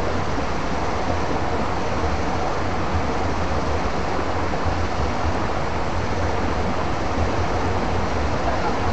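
Steady rush of flowing stream water, with a low hum underneath.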